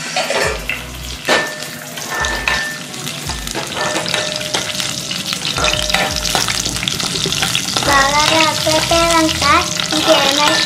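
Whole spices, green chillies and bay leaves sizzling in hot oil in an aluminium pan, stirred with a metal ladle that knocks and scrapes against the pan. The frying grows louder, and a wavering pitched tone joins in over the last few seconds.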